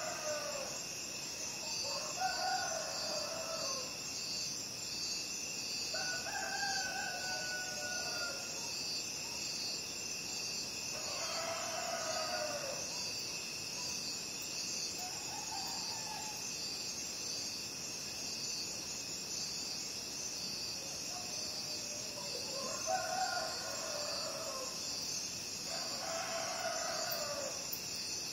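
Roosters crowing several times, some nearer and some farther off, over a steady, unbroken chorus of night crickets.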